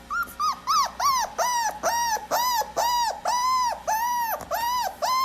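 A dog giving a rapid series of high yelps, about two a second, each one rising and falling in pitch.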